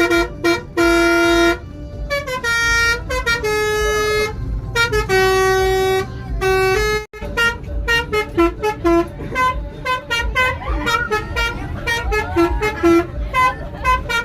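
Bus 'telolet' horn, a multi-tone musical air horn, playing a tune: held notes that step to new pitches, then long runs of quick short toots, over low engine rumble.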